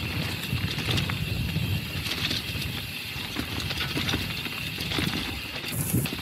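Mountain bike rolling over a rough stone road: a steady low tyre rumble with scattered rattles and knocks from the bike.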